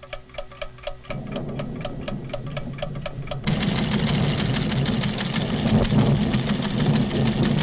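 Cartoon sound effects of delicate measuring instruments ticking rapidly and evenly with a light ringing tone. A low rumble of the volcano's tremors comes in about a second in and swells suddenly into a loud rumble about three and a half seconds in, when the ticking stops.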